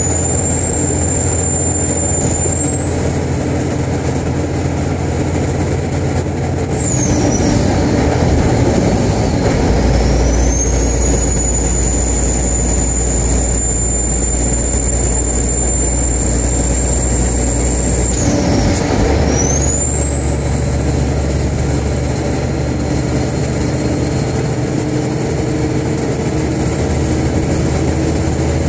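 The turbo of a 2001 Kenworth's 575 hp single-turbo Caterpillar diesel whistles high over the engine's drone. The whistle climbs and holds, drops away about a quarter of the way in and again about two-thirds of the way in, and climbs back each time.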